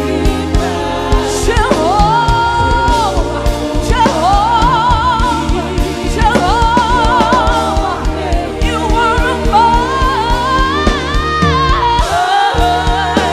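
Live gospel worship music: a singer holds long notes with vibrato over a band with steady bass and a regular drum beat.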